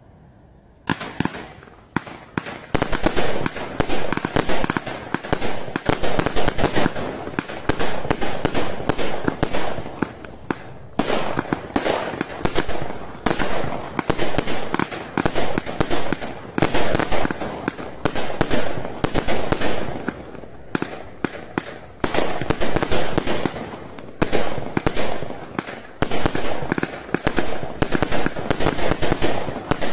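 A 100-shot 20 mm firework cake firing: a fast, dense string of shots and bursts that starts about a second in, with short lulls around a third and two thirds of the way through.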